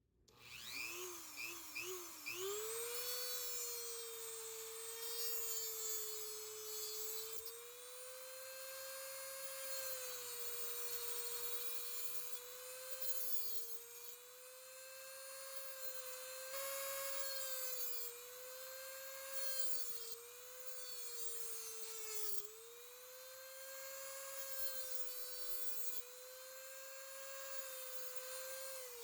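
A small high-speed electric motor whining, blipped three times at the start and then held steady, its pitch dipping briefly now and then under load and winding down at the end.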